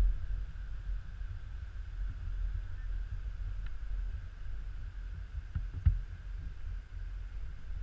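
Wind buffeting a GoPro action camera's microphone as a low, uneven rumble, with a single knock about six seconds in.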